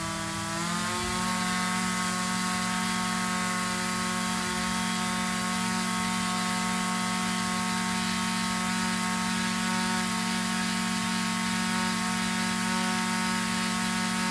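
Small two-stroke engine revving up about a second in, then running steadily at high speed.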